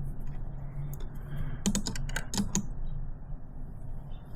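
A quick run of about six light clicks in the middle, from hand tools working a locking nut onto bent all-thread used as a hinge pin. A low steady hum runs underneath.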